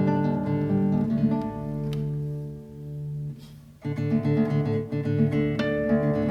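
Solo classical guitar built by Andrea Tacchi, fingerpicked: notes ring over a held low bass note that dies away, a brief pause about halfway, then the playing picks up again with a strong chord and continues.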